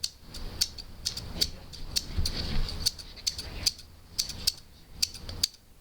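A run of sharp, irregular clicks and taps, about two or three a second, over a faint low rumble.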